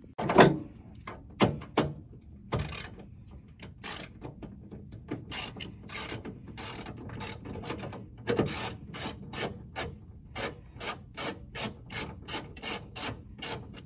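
Ratchet wrench clicking as 10 mm nuts are undone, with a run of even clicks at about three a second in the second half. A sharp knock about half a second in is the loudest sound.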